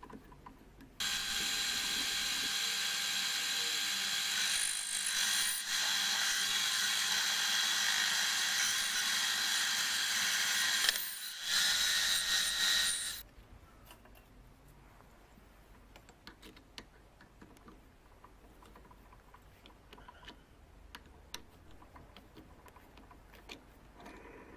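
Small metal lathe running, its gear train whining steadily. It starts about a second in and stops suddenly about halfway through, leaving only faint clicks and tool handling.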